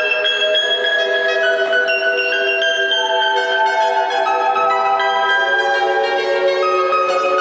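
Music of gently plucked string notes with sustained tones, in a slow flowing melody.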